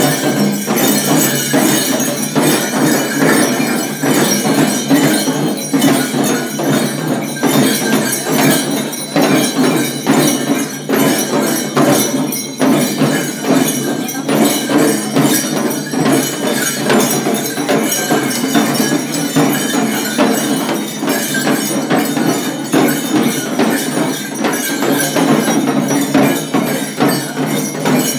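Several jhakri shamans' dhyangro frame drums beaten in a rapid, continuous rhythm, mixed with the jangling of the bells strung on their bodies as they dance.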